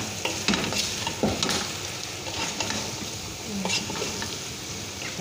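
Chicken pieces sizzling in hot oil with onion, tomato and spices in a metal pot while being stirred, the utensil clicking and scraping against the pot now and then.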